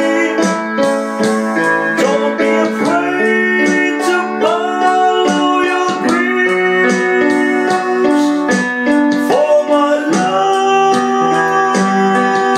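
Portable electronic keyboard playing a slow melody over held chords, the notes sustained and changing every second or so, a few of them sliding up in pitch.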